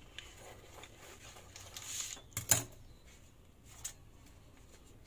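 Kitchen scissors snipping through a sheet of sponge cake and its baking paper, with soft rustling, then a sharp clack about halfway through as the metal scissors are set down on the marble worktop, and a lighter tick near the end.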